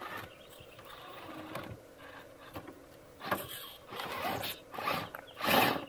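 Traxxas TRX-4 Defender RC crawler working against rocks: short bursts of electric whirring from its drive motor and 60 kg steering servo as the front end is steered left and right under load, starting about three seconds in. The loudest burst near the end comes as the truck shoves a rock over.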